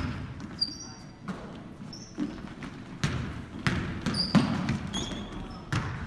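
Basketball being dribbled and bounced on a hardwood gym floor, with irregular thuds, and sneakers giving short high squeaks as players cut and shuffle during live play.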